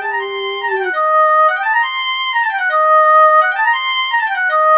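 Electronic ringtone-style tune of clear, woodwind-like notes running up and down in a repeating phrase, over a held lower note for about the first second, heard while a phone call rings through.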